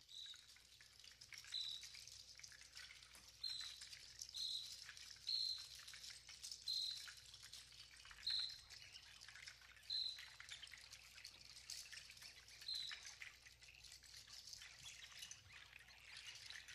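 A bird repeating a short, high chirp about eight times at uneven intervals over a faint, steady hiss of forest ambience.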